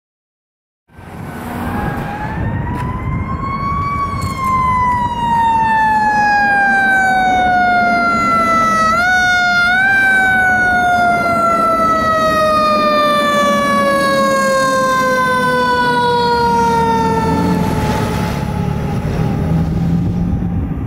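Fire engine siren starting about a second in, rising in pitch for about three seconds, then winding slowly down over about fourteen seconds, with two brief pushes back up near the middle. The truck's engine rumbles underneath, and the siren fades out near the end.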